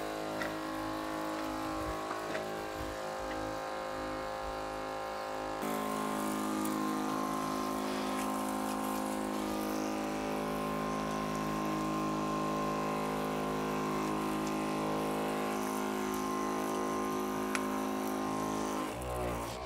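Detergent hissing out of a pressurised sprayer wand in a fine mist, over a steady humming drone that shifts abruptly about six seconds in.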